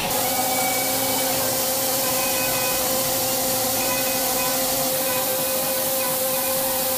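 CNC machining centre milling an aluminium cylinder head with coolant: a steady hiss of spray and cutting, with a steady spindle tone underneath.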